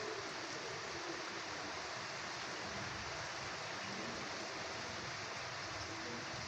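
Light rain shower falling steadily: an even hiss of rain with no single drops standing out.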